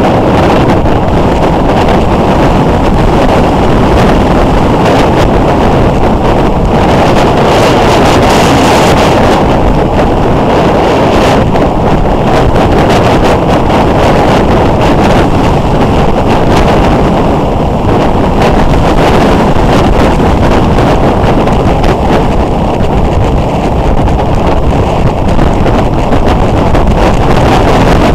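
Heavy wind noise on the microphone of a motorcycle-mounted camera at road speed, mixed with the motorcycle's engine running steadily. The noise is loud and even throughout.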